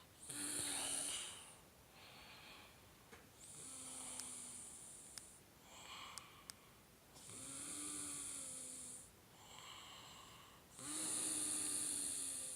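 Snoring: four long, loud snores about every three and a half seconds, with quieter breaths between them. A few faint clicks near the middle.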